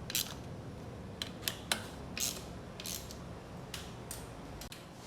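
Irregular light metallic clicks and clinks, about eight to ten in all, from tools or parts being handled over a faint background hiss.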